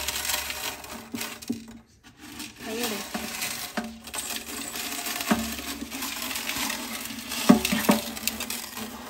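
Freshly rinsed aquarium gravel poured from a plastic bowl into a glass tank, the small stones rattling and clattering as they land. There is a short pause about two seconds in and a few sharper clicks near the end.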